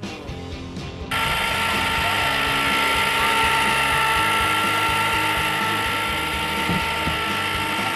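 Rival electric ice cream freezer running: its motor and gears give a loud steady whine with a ratcheting grind. It starts abruptly about a second in.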